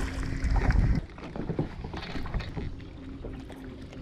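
Water splashing as a hooked speckled trout thrashes at the surface beside the boat, with wind rumbling on the microphone, loudest in the first second. It drops off suddenly about a second in, leaving quieter wind and water with a faint steady hum.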